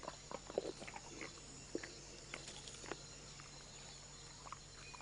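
Western lowland gorilla feeding: scattered soft snaps and crunches as it handles and chews plant food, over a faint steady high-pitched forest background.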